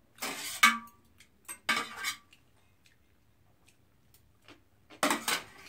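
Metal spoon scraping and clinking against a brass rice bowl as rice is mixed and scooped, in three short bouts, the first ending in a brief ringing clink.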